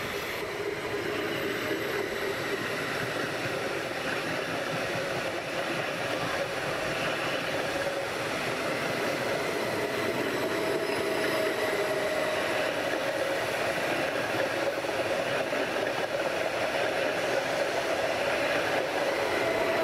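Two coupled Stadler FLIRT electric multiple units (BRB class 1430) rolling past close by: steady wheel-on-rail running noise with a steady hum over it, growing slightly louder.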